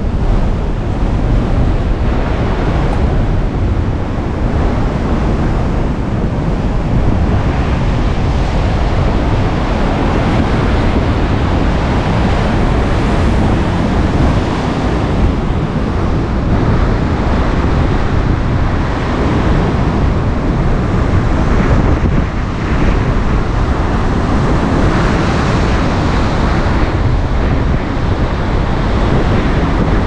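Storm surf churning and breaking against shore rocks, with strong wind buffeting the microphone in a steady, loud, low rumble.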